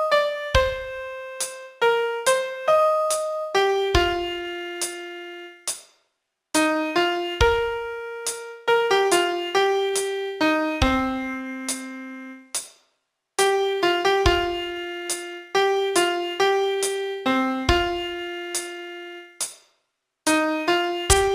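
Solo piano playing a simple melody one note at a time, with a deep bass note at the start of some phrases. The phrases are separated by short pauses, three times.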